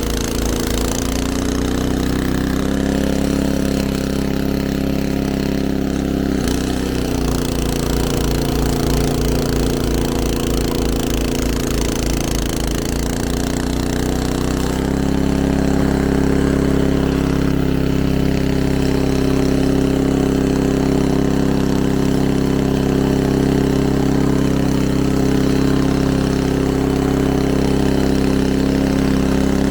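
Small snowblower engine running steadily. Its pitch dips briefly and recovers a few times as it takes load, and it settles into a slightly louder, steadier run about halfway through.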